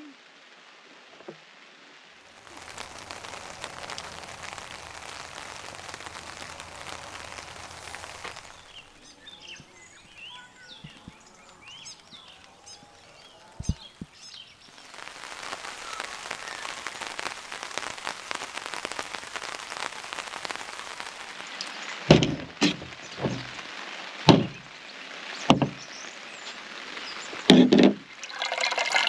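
Rain falling steadily, with a spell of small birds chirping in the middle. Near the end come several sharp knocks as things are put down on a camp table.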